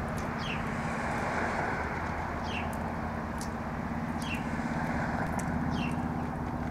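A motor vehicle engine running steadily, a low hum over a rumble of traffic-like noise. Over it, a small bird gives a short, high, falling chirp every second or two.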